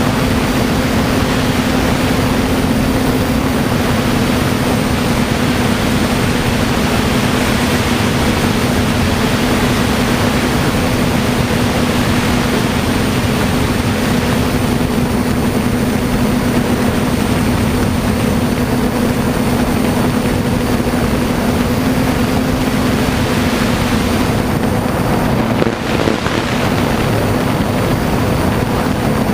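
DJI F450 quadcopter's electric motors and propellers running with a steady buzzing hum, heard from the onboard GoPro with wind rushing over the microphone. The hum briefly dips near the end.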